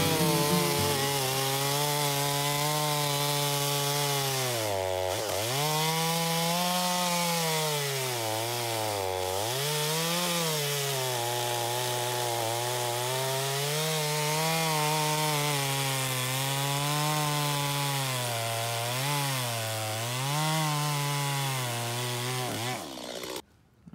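Stihl MS 250 two-stroke chainsaw cutting through a felled white elm log, running at high speed under load. Its engine speed dips briefly a few times as it lets off between cuts, and it stops near the end.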